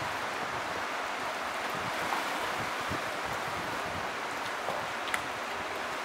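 Steady rush of creek water, with a sharp click about five seconds in.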